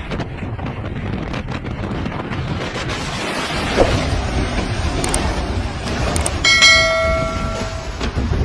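Violent storm wind buffeting the microphone in a steady low rumble, with a few abrupt changes in the sound. Near the end a steady horn-like tone sounds for about a second.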